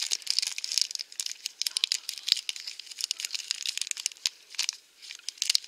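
Thin plastic blind-bag wrapper crinkling and tearing as fingers pick it open, a dense run of irregular crackles with a short lull near the end.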